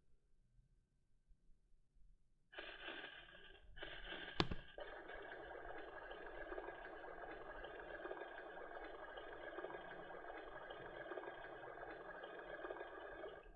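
A VTech Schnarchi sloth toy's small speaker playing a steady rushing noise, a soothing sound of the white-noise or rain kind, with no music. It starts about two and a half seconds in, drops out for a moment, has one sharp click about four and a half seconds in, then cuts off suddenly near the end.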